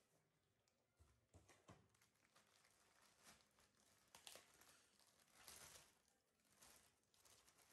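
Faint crinkling and rustling of a thin clear plastic bag as it is handled and pulled open around a pair of flip-flops, in short irregular bursts, with a couple of soft knocks about one and a half seconds in.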